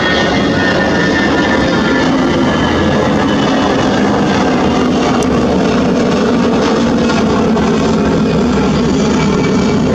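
Airbus A321-200's twin turbofan engines giving a loud, steady jet roar as the airliner climbs away just after takeoff.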